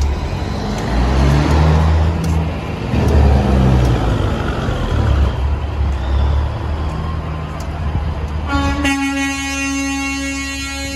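Semi-truck diesel engines rumbling as a tractor-trailer passes close by. About eight and a half seconds in, a truck air horn starts with one long, steady-pitched blast that is still sounding at the end.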